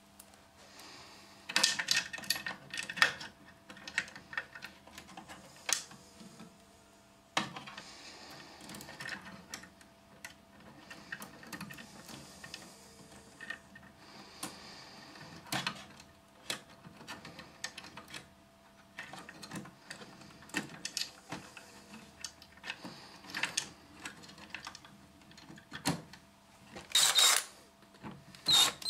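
Irregular clicks, taps and light knocks of plastic and metal printer parts and small tools being handled while a card printer is reassembled, with a louder scrape-like burst near the end.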